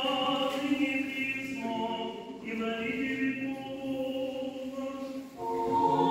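Church choir singing Russian Orthodox liturgical chant during a service: long held notes that move to a new pitch every second or two. A fuller, louder chord enters after a short break about five seconds in.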